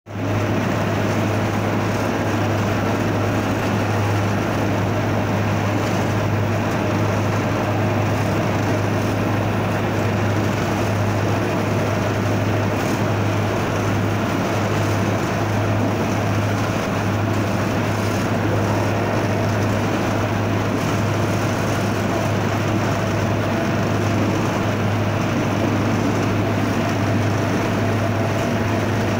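Diesel locomotive running along the line, heard from inside its cab: a steady engine hum under an even running noise, unchanging throughout.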